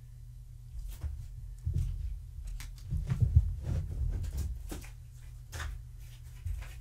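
A tabby cat pouncing after a feather wand toy: a run of low thumps and scuffles, loudest about three seconds in, with light rustles and clicks.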